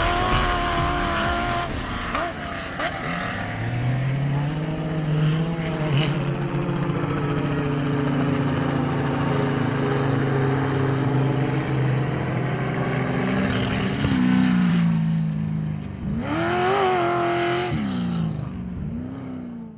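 Off-road race buggy engine running hard, holding steady revs for several seconds, then revving up and down near the end.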